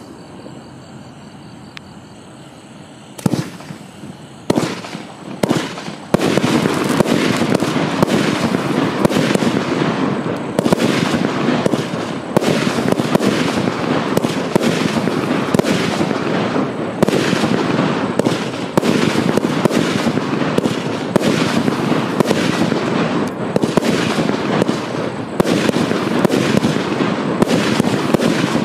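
Wolff 'The Throne' 346-shot double fan-shaped fireworks compound firing. A few separate shots come about three seconds in, then from about six seconds a dense, continuous run of rapid shots and bursts.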